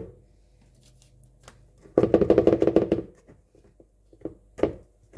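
Flour sieve shaken and tapped against a metal mesh strainer: a rapid rattle of quick taps lasting about a second, about two seconds in, with a few single knocks around it.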